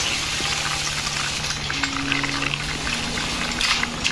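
Toy wheel loader pushed along by hand: its wheels rolling with a steady crackling hiss made up of many small clicks.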